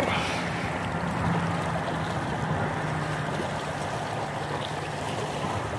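Steady shoreline noise of wind and water lapping against rocks, with a faint low hum over the first two seconds.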